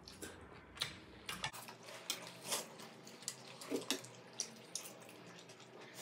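Eating sounds at a table: noodles being slurped and a drink sipped, with many short clicks of forks and spoons against plates.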